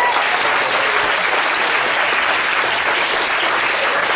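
A class of students applauding, many hands clapping at a steady level.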